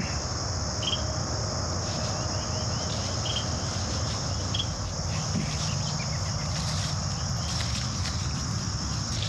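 Steady, high-pitched insect chorus, with a low rumble beneath it and a few short, faint chirps over the top.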